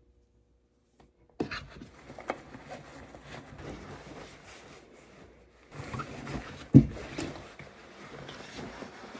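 Silence for about a second and a half, then clothes rustling and swishing as a jacket is pulled on, with one dull thump a little past the middle.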